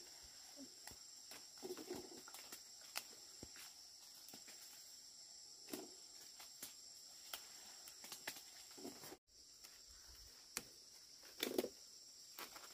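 Faint, steady chirring of an insect chorus, with scattered soft clicks and rustles of someone moving about. The sound cuts out for an instant about nine seconds in.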